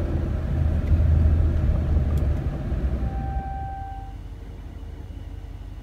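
2019 Ram 1500 engine and drivetrain rumble heard from inside the cab as the truck crawls along with its transmission stuck in first gear after a jump start; the rumble fades as the truck slows to a stop and settles to a quieter hum. About three seconds in, a single steady beep sounds for about a second.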